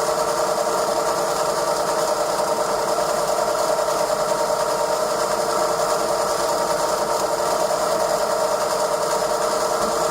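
Glass lathe running with a clamped glass tube turning in its chucks: a steady mechanical whir of the motor and gear drive.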